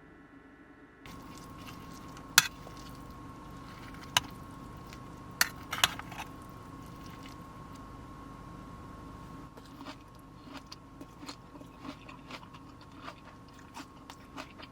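Salad being handled: a few sharp clicks of a utensil or knife against dish or board, then a run of light, crisp ticks, over a steady faint hum.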